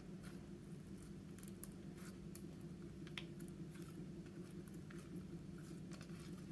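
Slime being squished and kneaded by hand, giving faint, irregular sticky clicks and pops. A steady low hum runs underneath.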